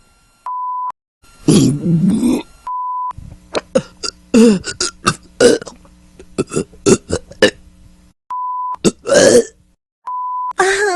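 Human burps played one after another, cut apart by short beep tones: a long belch, then a rapid string of short burps over a faint low hum, then another long belch, with a fourth burp starting right at the end.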